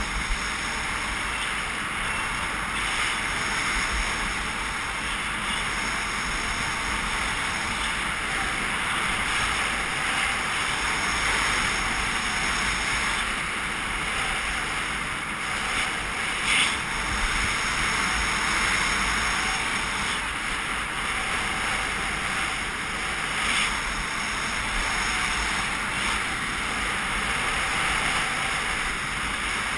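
Steady rushing hiss of alpine skis sliding over packed snow, mixed with wind buffeting the action camera's microphone during a downhill run. A brief, slightly louder scrape or knock comes about halfway through, and a weaker one a few seconds later.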